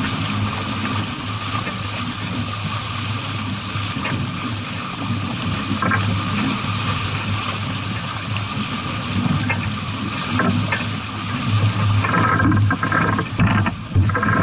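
Steady rushing of water and wind around a sailboat under way, growing louder and choppier over the last couple of seconds.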